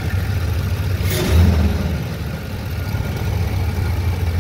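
Ford E250 van's 4.6-litre V8 idling steadily just after start-up, with its freshly fitted serpentine belt and tensioner turning. The engine note swells briefly about a second in, then settles back to a steady idle.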